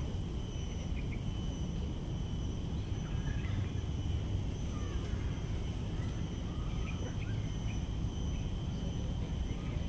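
Outdoor park ambience: a steady low rumble with scattered short bird chirps and a faint, steady high-pitched hum.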